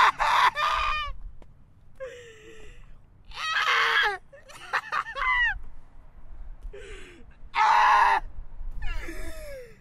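A young man's acted shouts and wails, a string of drawn-out anguished cries breaking in pitch, one every second or two, the loudest about four and eight seconds in. The shouts come across as strained: "like a dying squirrel jumping off a cliff."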